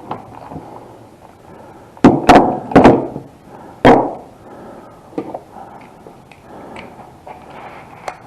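Hand tools knocking and clunking against engine parts: a quick cluster of about five sharp knocks, then a couple of lighter clicks.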